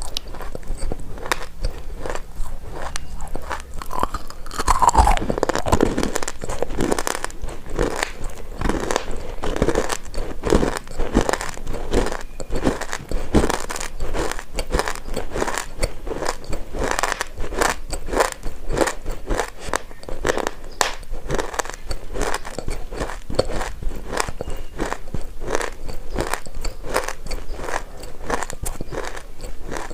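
Baked loess clay being bitten and chewed: a continuous run of dry, crisp crunches, several a second.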